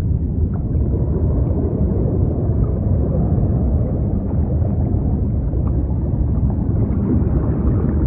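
Sea rumbling as a deep, steady wash of noise with no distinct waves rising and falling, with a few faint scattered ticks above it.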